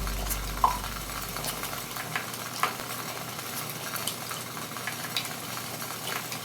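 Esbit stainless steel camping coffee maker heating over a burning solid-fuel tablet: a soft steady hiss of water coming to the boil, with scattered small ticks and pops.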